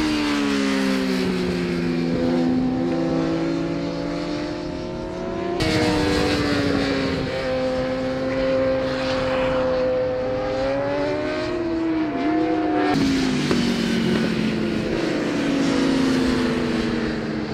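Racing superbike engines running at high revs as the bikes lap the circuit. Several engine notes fall and rise in pitch, and the sound changes abruptly twice.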